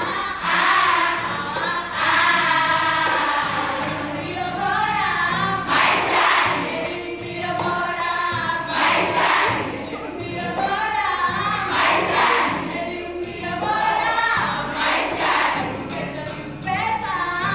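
A large group of schoolgirls singing together over an electric guitar, with a louder shout of voices about every three seconds.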